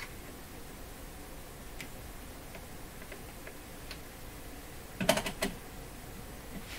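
Faint scattered ticks, then a quick cluster of sharper clicks about five seconds in, from a capacitor being fitted into the test-lead clips and the controls of a Heathkit condenser checker being handled.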